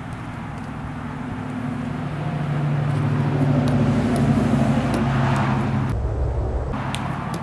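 A car driving past on the road: steady engine hum and tyre noise that build to their loudest about four to five seconds in, then fade.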